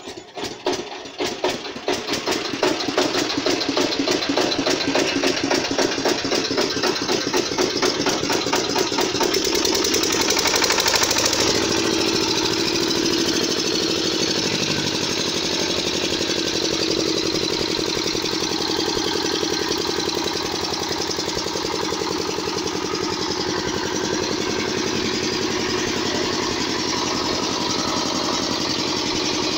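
Single-cylinder diesel generator set started by hand crank: slow, separate firing beats quicken as the engine catches and runs up to speed. About ten seconds in the sound shifts and it settles into steady, even running.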